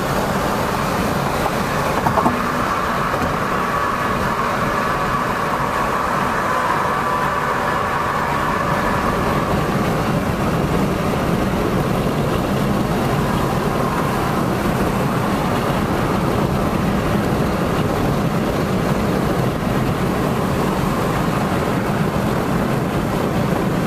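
Steady highway driving noise heard inside a moving car's cabin: tyre roar and wind at cruising speed. There is a brief knock about two seconds in.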